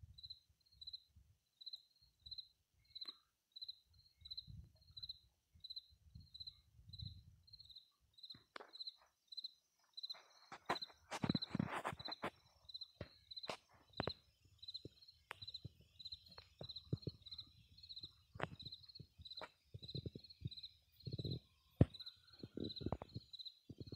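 An insect chirping steadily, about two short high chirps a second, over scattered soft knocks and rustling in the grass from grazing horses stepping and cropping grass.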